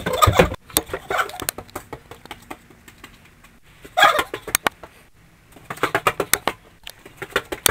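A boy's wordless shrieks and squawk-like yelps in hyperactive outbursts, one about four seconds in and another near the end. Between them come a run of sharp clicks and knocks from his frantic movement.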